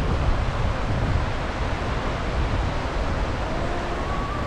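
Sea surf washing and breaking around a low wooden pier, a steady rushing, with wind rumbling on the microphone.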